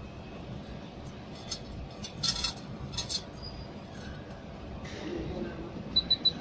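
Light metallic clinks of the silver necklace and tools being handled on the jewelry laser welder, then near the end the start of a quick run of short, high, evenly spaced beeps from the welder as it fires.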